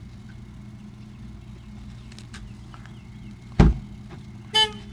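A single sharp knock about three and a half seconds in, from a hand bumping the camera as it reaches toward it. A brief high-pitched chirp follows about a second later, over a steady low hum.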